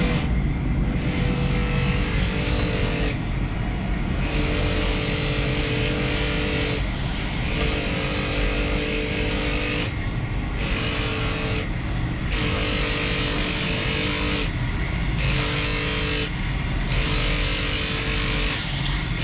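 A power tool running steadily, its hiss breaking off briefly every few seconds while a steady hum comes and goes in stretches of a second or two, as in repeated passes of work against the tool.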